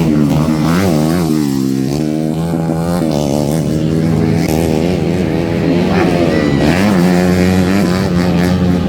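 Motocross dirt bike engines revving on a grasstrack, the pitch climbing and dropping again and again as the throttle is opened and closed.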